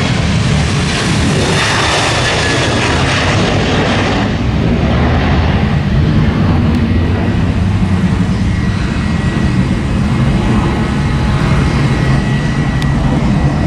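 Twin-engine Boeing 737 jets at takeoff thrust as the airliner rolls and climbs out: a loud roar whose high hiss fades after about four seconds, leaving a deeper, louder rumble with a faint steady whine on top.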